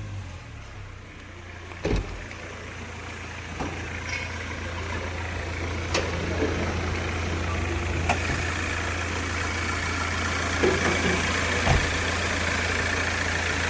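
Hyundai Creta diesel engine idling steadily, with a few short sharp clicks or knocks over it.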